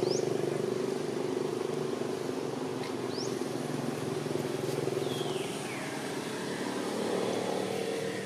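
A motor vehicle engine running steadily, a low drone that eases off slightly over the seconds. A few short, high rising chirps cut across it near the start and about three seconds in, and a falling call follows at about five seconds.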